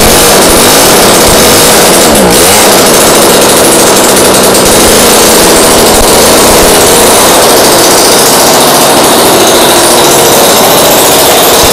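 Gas string trimmer engine with a homemade straight pipe running very loud and unmuffled, its pitch dipping and coming back briefly about two seconds in.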